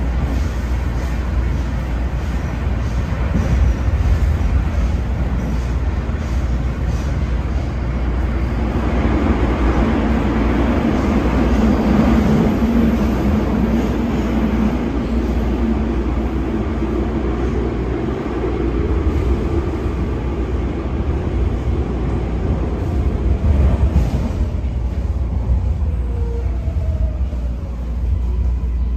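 Interior of a MARTA rapid-transit rail car in motion: the steady low rumble of wheels on the rails, growing louder for several seconds midway through. Near the end a short falling whine comes as the train slows into a station.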